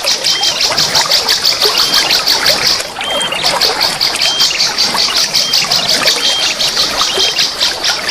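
Flowing water trickling and splashing, under a fast, even, high-pitched pulsing call that breaks off briefly about three seconds in, and a short chirp repeated about once a second: a songbird-training track of birds singing by a waterfall.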